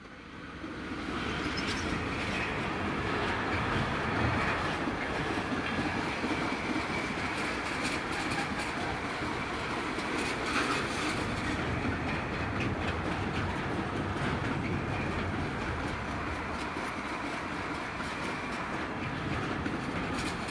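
Diesel-hauled container freight train passing: the sound swells in the first second or so as the locomotive comes by, then a steady rush of wagon wheels on the rails with scattered clickety-clack and clicks.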